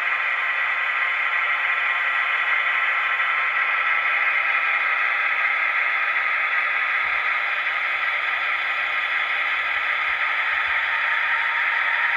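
H0-scale model freight trains running on the layout: a steady hiss of small wheels on metal track and electric motors, with a few faint knocks.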